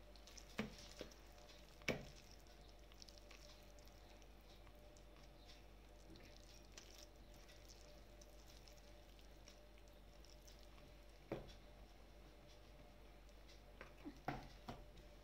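Faint stirring of soft yeast dough with a plastic spoon in a plastic bowl, the spoon giving a few sharp taps against the bowl: about three in the first two seconds, one more later and a quick cluster near the end.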